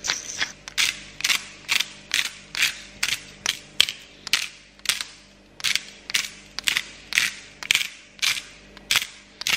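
A hand-twisted spice grinder grinding seasoning over raw chicken wings: a regular series of short, gritty crunching clicks, about two a second.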